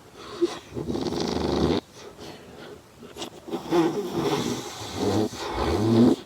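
A person snoring in two long rasping snores. The first cuts off sharply about two seconds in; the second runs from about three and a half seconds until just before the end.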